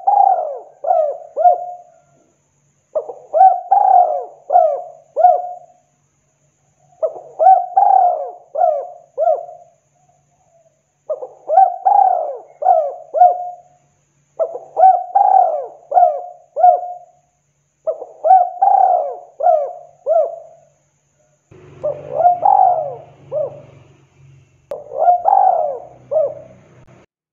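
Spotted dove cooing its repeated phrase, each a run of four or five throaty notes lasting about two seconds, given about every three to four seconds, eight times. A low hum comes in under the last two phrases.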